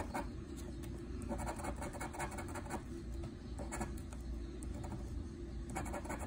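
A metal blade scraping the latex coating off a scratch-off lottery ticket in quick, short, repeated strokes.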